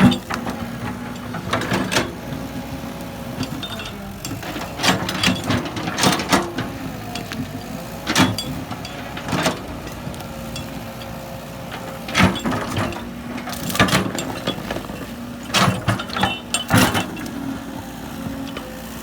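Diesel engine of heavy earthmoving machinery running steadily, with a higher whine that wavers in pitch, and repeated sharp knocks and clanks at irregular intervals.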